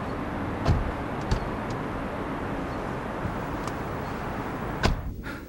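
Steady vehicle and traffic noise heard from inside a car, with a few sharp knocks, the loudest about a second in and near the end.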